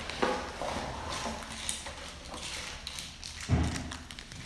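Box and packaging being handled as items are lifted out: irregular rustling, clicks and light knocks, with one dull thump about three and a half seconds in.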